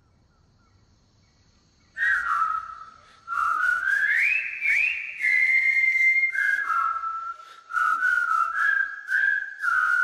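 Near silence for about two seconds, then a person whistling a tune in phrases, the pitch rising and falling.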